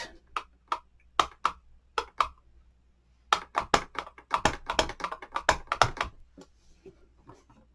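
Light plastic clicks and taps of a Stampin' Up ink pad case being handled and the ink pad dabbed onto a clear photopolymer stamp: a few scattered clicks, then a quick run of taps for a few seconds.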